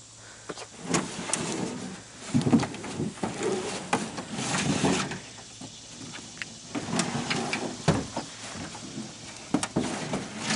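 Irregular knocks, scrapes and scuffs as a large snapping turtle is held down and struggles in a small boat.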